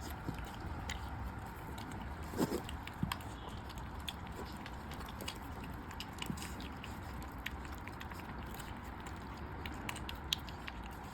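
A pig and a puppy eating, with frequent small sharp chewing and biting clicks over a steady low hum. There is one louder knock about two and a half seconds in.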